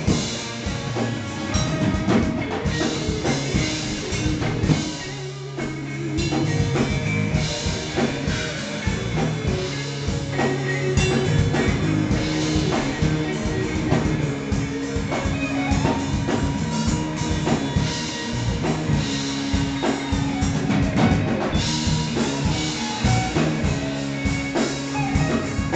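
A live rock band playing an instrumental passage: electric guitars over a drum kit, with sustained low notes and steady drum hits. The sound thins out briefly about five seconds in, then picks back up.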